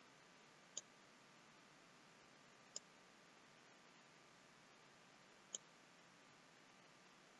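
Three faint computer mouse clicks spread across a few seconds, over a low steady hiss.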